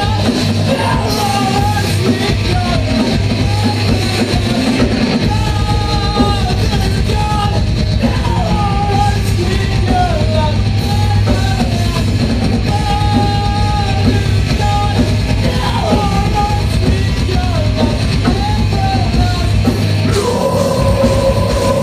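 Live metalcore band playing loudly: drum kit, distorted guitars, and sung and yelled vocals. Near the end the music settles into a single steady held tone.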